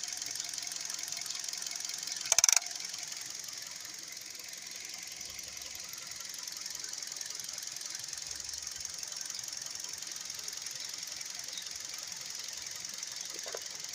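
Car engine idling steadily with a fast, even ticking, its drive belt running on freshly cleaned pulley grooves, which the owner says no longer whistle. A brief loud clatter about two and a half seconds in.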